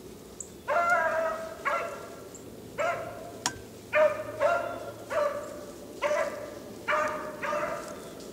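Beagle baying while running a rabbit's trail: about ten short bays, roughly a second apart. A single sharp click comes about three and a half seconds in.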